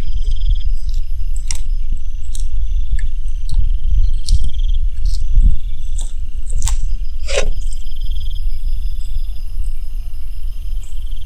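Bearded dragon crunching a small lizard held in its jaws: irregular sharp crunches and clicks over a steady low rumble, with an insect chirping on and off in the background.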